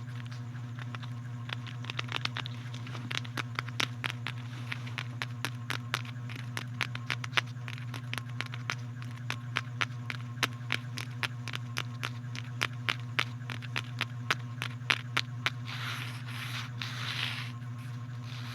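Quick, sharp, irregular clicks, several a second, over a steady low hum. A soft rustling swish comes near the end.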